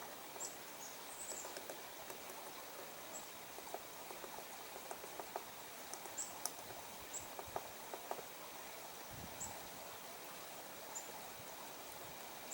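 Female downy woodpecker pecking at wood: soft, irregular taps in ones and small clusters rather than a steady drum roll. Short, high chirps come now and then over the taps.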